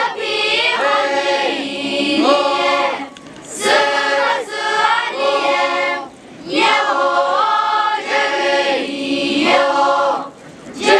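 A group of young voices singing a traditional song together, in phrases broken by short pauses every three to four seconds.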